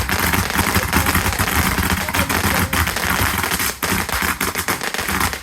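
Fireworks going off in a dense, rapid string of small bangs and crackles, with a brief lull just under four seconds in.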